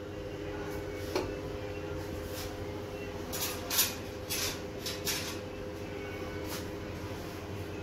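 A few short clicks and scrapes of a utensil against a ceramic plate, most of them bunched between about three and five seconds in, over a steady low hum.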